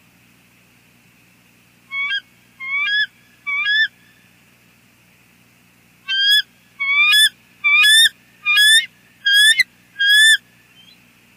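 Bald eagles calling on the nest as the pair mate: a series of high, rising whistled calls, three about two seconds in, then six more in quick succession after a short pause.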